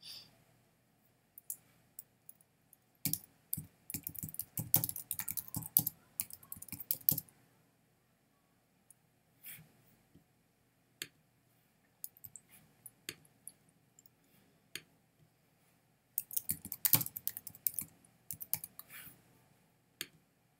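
Typing on a computer keyboard: two bursts of rapid key clicks, with single clicks scattered between them.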